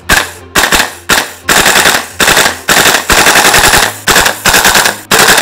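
Umarex HK416 V3 gas-blowback airsoft rifle firing: a few single shots, then rapid full-auto bursts with the bolt cycling on each shot.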